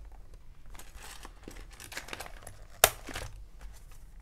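Paper planner pages and a sticker sheet rustling and sliding under hands, with soft scattered crinkles and one sharp tap about two-thirds of the way through.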